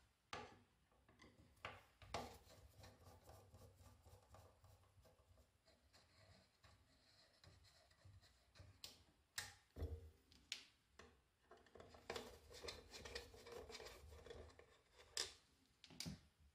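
Faint scraping and small clicks of a screwdriver working the screws of a metal band saw's plastic wheel covers, with hands rubbing and shifting the covers. A few sharp clicks stand out about two seconds in, around nine to ten seconds in and again near the end.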